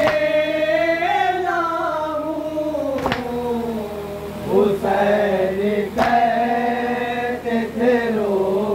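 Men's voices chanting a noha, a Shia mourning lament, in unison, with long wavering sung lines. Two sharp hits cut through the chant, about three seconds apart.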